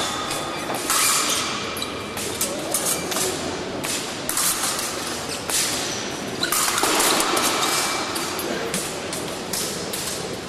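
Épée fencing in a large hall: irregular thuds and taps from the fencers' footwork on the piste and their blades, over a murmur of voices echoing in the hall.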